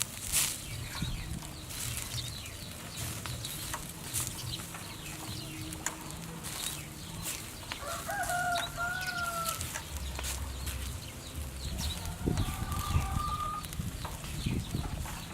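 A rooster crowing once about eight seconds in, with a fainter call a few seconds later, over a scatter of small clicks and knocks.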